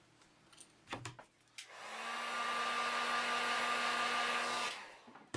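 Electric heat gun switched on and blowing for about three seconds, a steady rush of air with a thin whine, then switched off. It is warming the edge of the iPad to soften the thermal adhesive holding the screen to the casing. Two short knocks come just before it starts.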